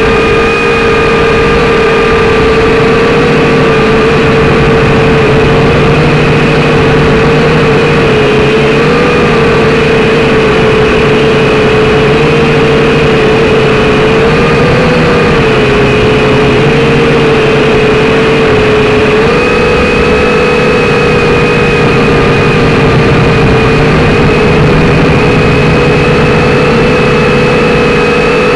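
Syma X5C-1 mini quadcopter's motors and propellers whining steadily in flight. The pitch wavers a little and steps up slightly about two-thirds of the way through.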